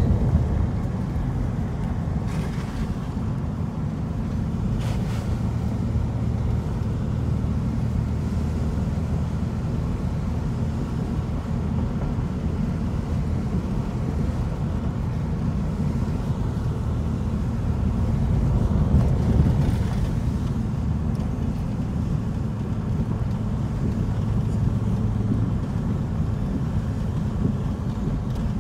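Steady low rumble of a car driving, tyre and engine noise heard from inside the cabin, with a couple of faint knocks a few seconds in.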